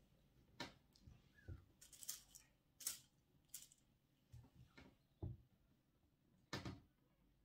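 Faint, scattered clicks, taps and rustles, about ten in all, from hands handling and pinning lace fabric on a table.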